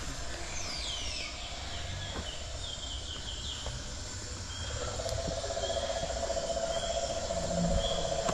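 Birds chirping in short falling calls over a low outdoor rumble. About halfway through, a steady buzz starts and carries on.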